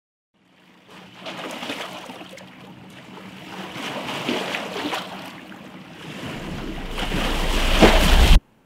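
Waves breaking and splashing over shoreline rocks, fading in about a second in and swelling and ebbing with each surge. A deep rumble builds under the surf near the end, and the sound cuts off abruptly just before the end.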